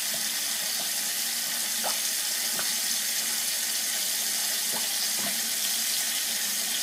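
Kitchen faucet running steadily into a stainless steel sink, the stream splashing onto cedar planks as the sink fills to submerge them, with a few faint ticks.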